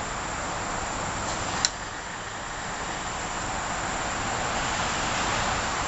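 Water from a garden hose rushing through a pressure washer's pump with the engine off, a steady hiss that builds slowly; a single sharp click about a second and a half in.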